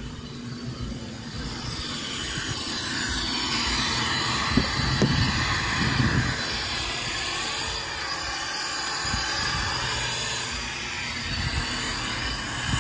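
Shop vac running steadily, getting louder about two seconds in, with a couple of light knocks near the middle.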